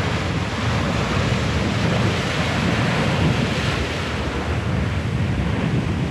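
Ocean surf surging into a narrow rocky surge channel, the water churning and foaming over the rocks in a continuous wash.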